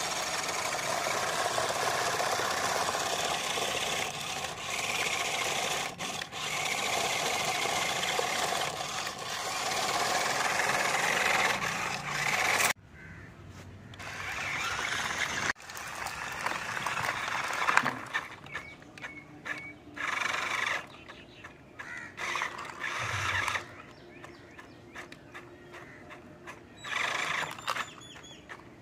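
Toy RC six-wheel monster truck's electric drive motors and gearboxes whining steadily as it tows a loaded trolley over paving stones. After a sudden break about halfway through, it runs only in short stop-start bursts as its battery runs low.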